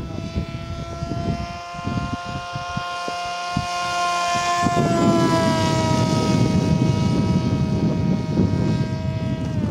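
Radio-controlled model airplane's motor and propeller in flight, a steady high whine whose pitch drops slightly about halfway through as the plane passes. Wind buffets the microphone with a low rumble from about halfway on.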